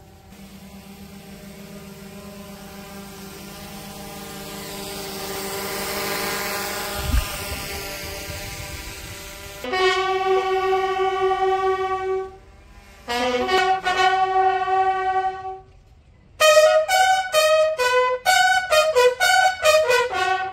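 Military bugle call: two long held notes, then a quick run of short notes at changing pitches, after a steady held tone that swells over the first half.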